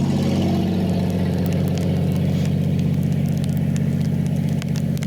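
A motor vehicle's engine running steadily at one pitch, close by.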